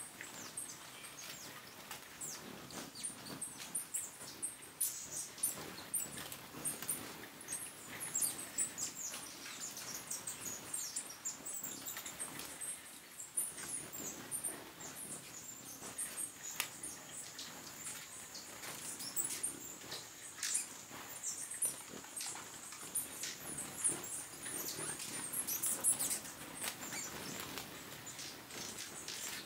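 Hummingbirds at a feeder giving rapid, high-pitched chips and squeaky twittering throughout, over a thin steady high whine.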